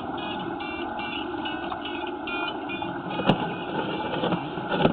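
An engine running steadily, with a run of short, high chirps repeating quickly in the first half and a sharp click about three seconds in.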